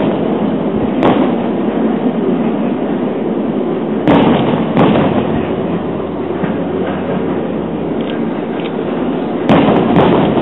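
Aerial fireworks shells bursting with sharp booms: one about a second in, two close together around the middle, and two more near the end, over a steady background din.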